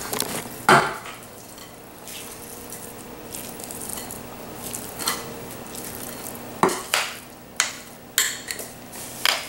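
Metal spoon scraping and clinking against a glass mixing bowl and glass baking dish as a crumbly topping is spooned out over fruit. A sharp clink comes about a second in, and several more come in the last three seconds.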